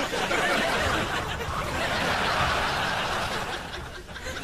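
Studio audience laughing, a dense wash of laughter that starts at once and eases off near the end.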